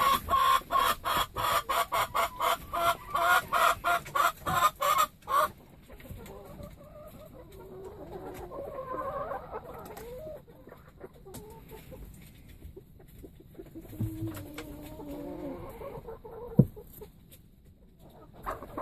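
Hen clucking loudly and rapidly, about four clucks a second, for the first five seconds, then softer, scattered clucking. Near the end a single sharp thump: a freshly laid egg dropping into the nest box.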